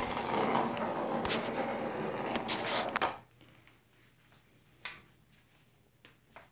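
Ball rolling around the plastic track of a circular cat scratcher toy: a continuous rattling rumble for about three seconds that then stops, followed by a few faint knocks.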